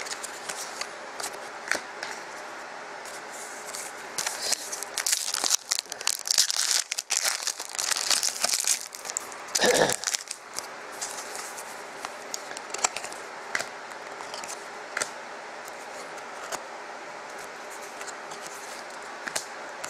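Foil wrapper of a trading-card pack crinkling and tearing open in dense crackly bursts for several seconds in the middle, with light clicks and rustles of cards being handled before and after.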